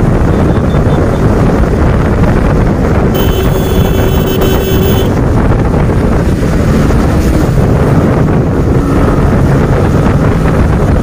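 Heavy wind noise buffeting the microphone of a KTM sport motorcycle riding at speed, with its engine running underneath. About three seconds in, a steady high tone sounds for nearly two seconds.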